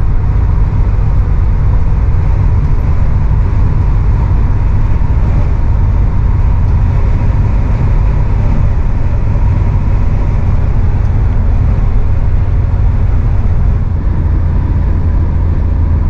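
Steady road and wind noise inside the cab of a Ford driving at highway speed in strong wind: a loud, even, deep rumble.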